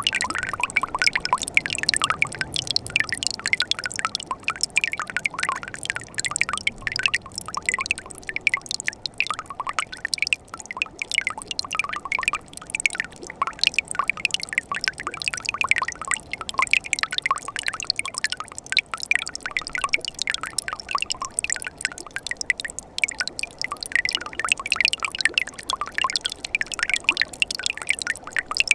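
Mountain stream in winter trickling and babbling over rocks: a steady, dense patter of small splashes and gurgles with no letup.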